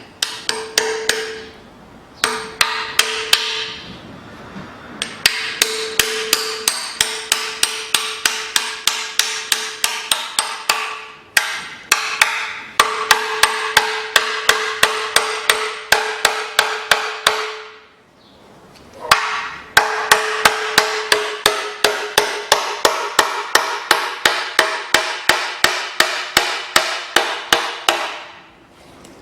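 Hammer blows driving an oil pan cutter blade into the sealant seam between the steel oil pan and the engine block of a Mitsubishi ASX 1.8, to break the pan free. The blows are quick and even, about three a second, in several runs with short breaks between them, and the pan gives a ringing metallic note.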